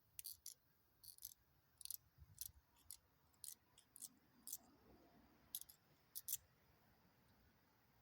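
About a dozen light, irregular clicks and ticks, the sound of small plastic model-car parts and tools being handled, stopping after about six seconds.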